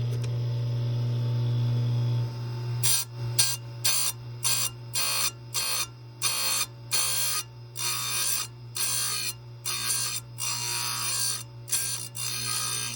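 Grinder motor running steadily, then from about three seconds in a fast series of short grinding rasps, two to three a second, as the wheel is tapped against the cutter teeth of a chainsaw chain to square-grind them.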